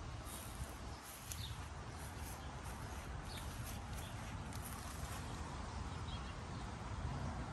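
Outdoor yard ambience: a steady low rumble on the phone's microphone, with a few faint bird chirps now and then.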